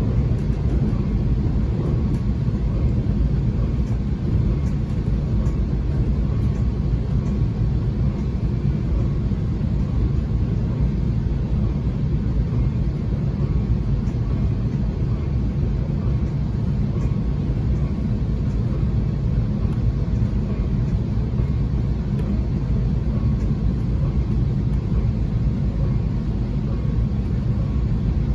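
Sound Transit Sounder commuter train running along the track, heard from inside the passenger car: a steady, even rumble of the train's motion and wheels on rail, with a faint steady whine above it.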